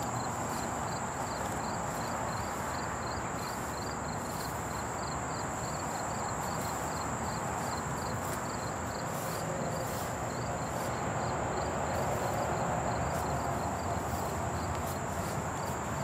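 Outdoor summer ambience of insects: a constant high thin buzz and a chirp repeating about two to three times a second, over a steady hiss.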